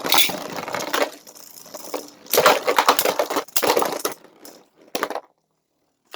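Two Beyblade spinning tops, one of them 3D-printed, clashing hard and repeatedly in a plastic stadium, a dense run of clacks and scraping hits that stops about five seconds in.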